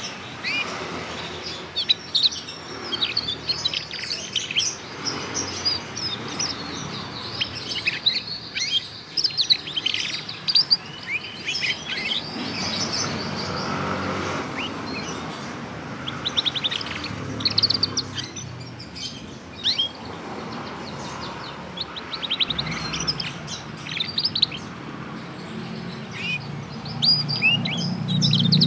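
Young male canary, a Scotch Fancy–Lizard cross about three months old, twittering a rambling practice song of quick chirps, slurred notes and short rapid trills: a juvenile still learning its song. A low rumble swells near the end.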